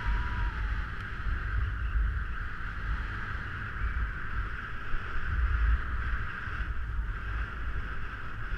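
Snowboard sliding over packed snow with a steady hiss, mixed with wind buffeting the rider-worn camera's microphone as a fluctuating rumble.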